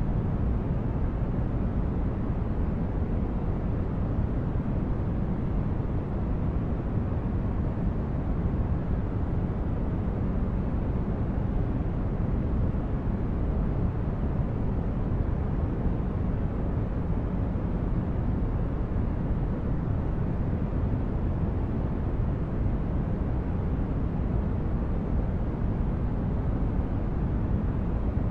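Continuous sleep-aid noise, deep and even, with most of its weight in the low end and little hiss on top. It does not change.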